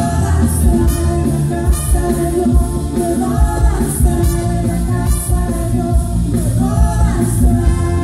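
Live band playing an upbeat Latin-style worship song, with drums, congas, bass, electric guitar and keyboard under a sung lead vocal.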